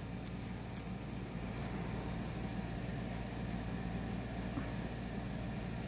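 Steady low room hum and hiss, with a few faint clicks in the first second or so.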